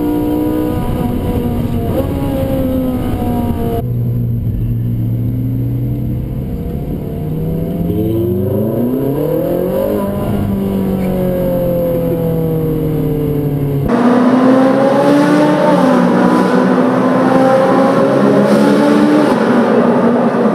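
Ferrari 458 Spider's V8 engine running under way, the revs rising and falling. About 8 to 10 s in the revs climb steadily. The sound cuts abruptly between separate takes about 4 s and 14 s in, and the last take is louder, with more rushing road and wind noise under the engine.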